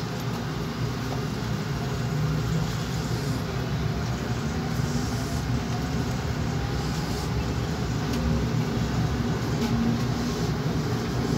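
LRT Line 2 train running between stations, heard inside the passenger car: a steady rumble of the wheels on the rails with a faint low hum.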